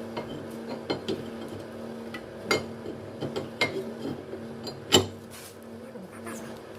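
Brake rotor clinking against the wheel hub and studs as it is slid on: scattered metallic clicks and knocks, the loudest about five seconds in, over a steady faint hum.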